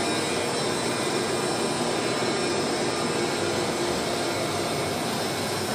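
Steady fan-like whooshing hum with a faint low drone, unchanging throughout, heard inside an elevator cab that is standing with its doors open.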